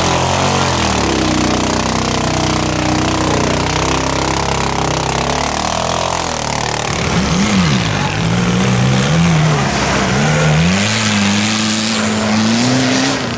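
Off-road vehicle engines labouring through deep mud: a steady low engine drone for the first half, then an engine revved up and down again and again as it pushes through.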